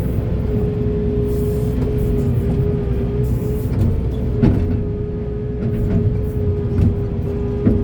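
Heavy excavator's diesel engine running steadily under a constant whine, with a low rumble and a few sharp knocks, about four and a half seconds in and near the end.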